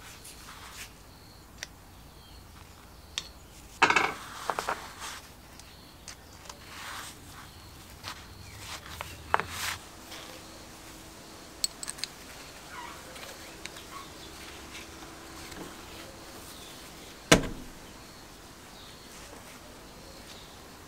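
Small steel fittings of a foot pump's hose connector clinking and clicking against each other and a bench vise as they are handled. The sharp metal clicks are scattered, with a short cluster about four seconds in and the loudest single click past the seventeen-second mark.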